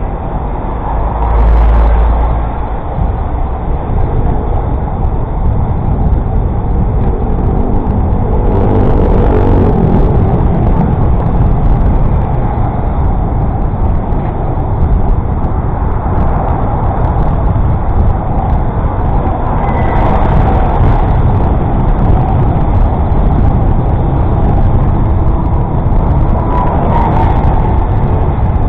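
Road traffic heard from a moving bicycle: a loud steady rumble of motor vehicles close by, with a brief heavy low thump about a second and a half in.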